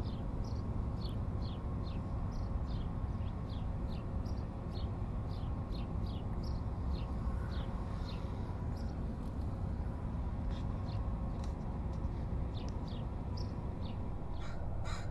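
Outdoor ambience of birds calling over and over with short, high, downward-sliding chirps, a few each second, over a steady low rumble. Near the end come two louder, harsher calls.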